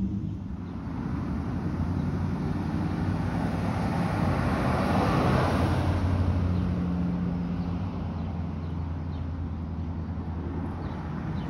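A road vehicle passes close by. Its tyre and engine noise swells to a peak about five seconds in and then fades, over a steady low engine hum.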